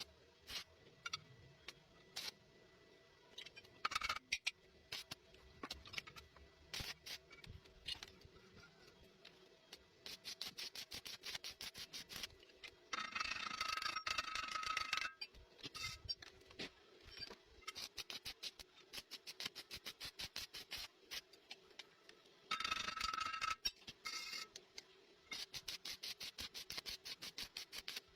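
Welding arc crackling and clicking in uneven spells, with two louder stretches of dense, steady buzzing, about halfway through and again near the end.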